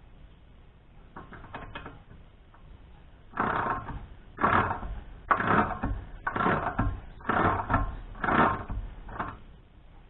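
Hand work on metal: a few faint clicks, then about six rasping strokes roughly a second apart.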